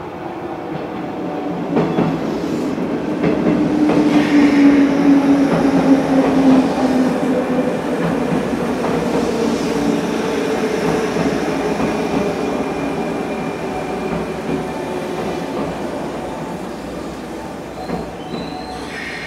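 JR 201 series electric train pulling out and running past at close range. Its chopper-controlled traction motors whine in steady tones over the rumble and clicking of wheels on the rails. The sound builds over the first few seconds as it gathers speed, then slowly eases off.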